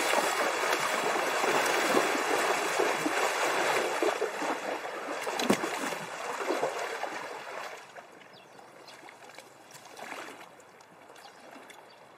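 Horses wading through shallow river water, a steady splashing with a few sharper hoof splashes around the middle. The splashing dies away about two-thirds of the way in, leaving only faint scattered sounds.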